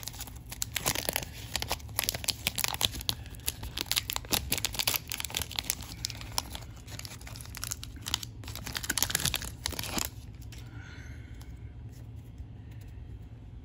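Foil trading-card pack wrapper torn open and crinkled by hand, a dense crackle lasting about ten seconds, after which only faint handling of the cards remains.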